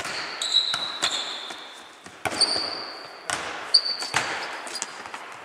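A foot-tennis ball being kicked and bouncing on a sports-hall floor: several sharp, echoing thuds at uneven intervals, with short high-pitched squeaks of shoes on the hall floor in between.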